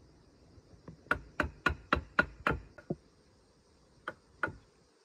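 Sharp knocks of wood on wood, about four a second for a couple of seconds, then two more near the end: a crossbar joint in a bamboo post being struck with a wooden stake used as a mallet. Steady insect chirring underneath.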